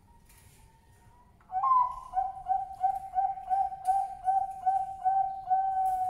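Male Bangkok-strain zebra dove (perkutut) cooing. A rising opening note comes about a second and a half in, then a quick run of short coos, about three a second, that draws into a longer held note near the end.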